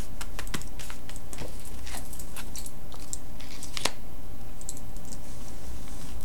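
Tarot de Marseille cards being mixed face down on a cloth-covered table: a quick run of soft clicks and papery scrapes as the cards slide over one another, thinning out after about four seconds, over a steady low hum.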